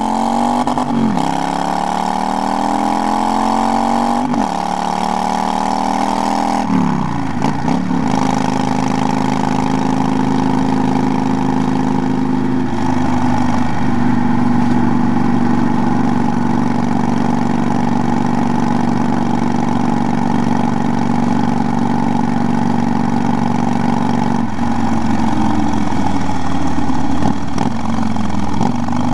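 Kawasaki V-twin cruiser motorcycle engine accelerating through the gears, its note rising and then dropping at each of three upshifts in the first eight seconds. It then runs at a steady cruise and eases off with a falling pitch near the end. Wind rushes on the microphone throughout.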